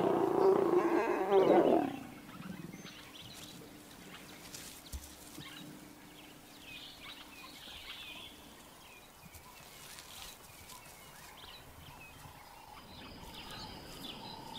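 Mating lions giving a loud, growling snarl that lasts about two seconds, then breaks off. Faint high chirping calls follow in the background.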